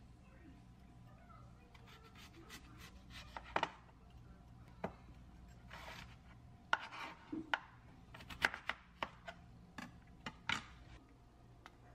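Chef's knife chopping a peeled Korean radish (mu) into large chunks, the blade knocking down onto the cutting board: about a dozen irregular chops, starting a few seconds in and coming quickest in the second half.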